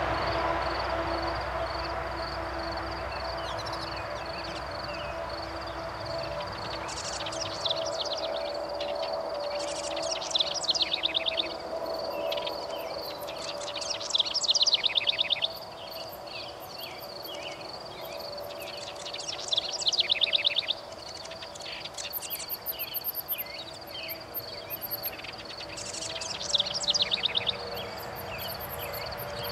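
House wren singing five short bursts of rapid chattering notes, a few seconds apart, over a steady high pulsing trill of insects.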